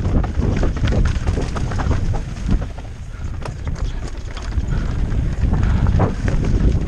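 Wind buffeting the microphone of a mounted camera on a moving rider, with irregular rattling clicks and knocks like a ride over rough ground. It eases somewhat in the middle.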